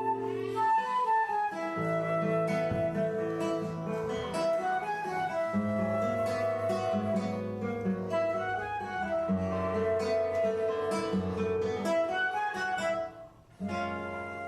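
Live instrumental music: acoustic guitar plucking chords under a slow, held flute melody. The playing drops away briefly near the end, then starts again.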